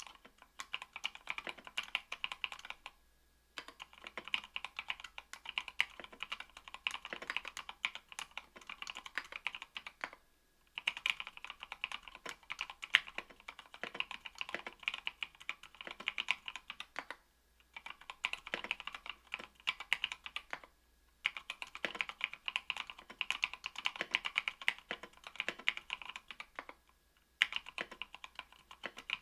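Fast typing on a mechanical keyboard fitted with lubed NovelKeys Cream linear switches on an aluminum plate: dense runs of keystrokes broken by short pauses every few seconds.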